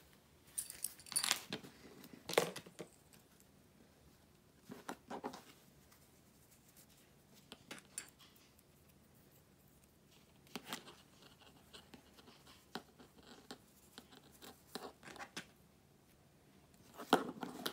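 Scattered short rustles and small clicks as stretchy swimsuit fabric and denim binding are handled and plastic sewing clips are clipped onto the folded binding, with quiet gaps between.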